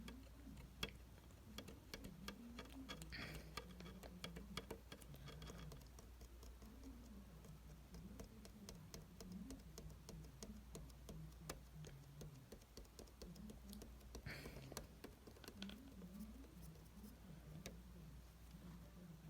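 Near silence: faint room tone with scattered light clicks and taps and a faint low murmur that wanders in pitch.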